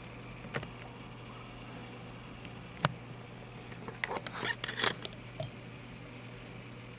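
Handling noise from the clear container and its mesh: a couple of single taps, then a cluster of rubbing scrapes and clicks about four to five seconds in as a green stick is pushed in, over a steady low hum.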